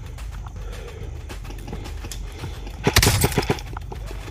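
A quick string of about seven sharp knocks in under a second, about three seconds in: airsoft gunfire.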